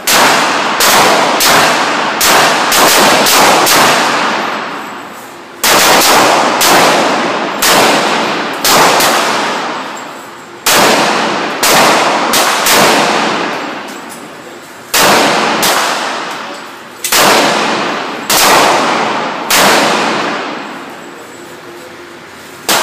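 1911 semi-automatic pistol fired in strings of rapid shots, about two a second, with short pauses between strings. Each shot is a sharp crack followed by a long echoing decay off the walls of the indoor range.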